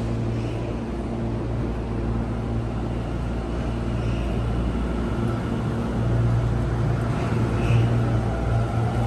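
Tobu Tojo Line electric commuter train noise: a steady rumble with a low hum.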